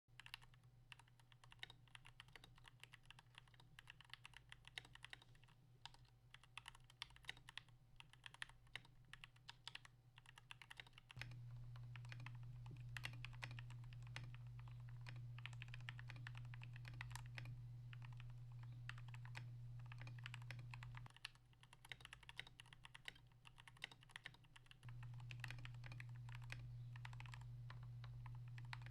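Typing on a TM680 custom keyboard fitted with lubed Gateron Milky Yellow linear switches and XDA-profile PBT keycaps, a quick run of soft keystroke clacks. A steady low hum lies underneath, louder from about a third of the way in to two-thirds, and again near the end.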